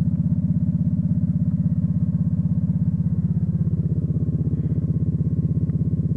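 Polaris Sportsman XP 850 ATV's parallel-twin engine idling steadily with an even, fast pulse.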